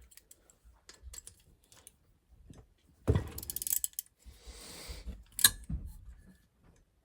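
Socket ratchet wrench clicking with hand tools clinking, a dense burst of rapid ratchet clicks about three seconds in and a sharp metal clink a couple of seconds later, while bolts are worked loose on a small lawnmower engine.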